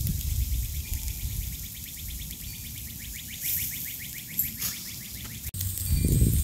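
Outdoor ambience: an uneven low rumble of wind on the microphone, with a rapid, even chirping trill of about ten chirps a second in the background for a few seconds.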